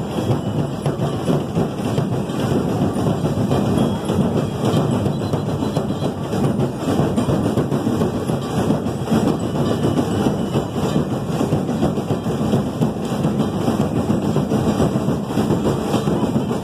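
Loud, steady din of a packed crowd, a dense wash of noise with no pauses.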